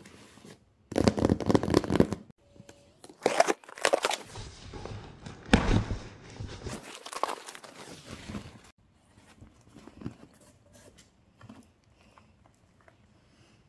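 Cardboard shipping box being torn and pulled open, with paper crinkling, in several loud bursts over the first eight seconds or so. After that, only faint rustles as small product cartons are handled.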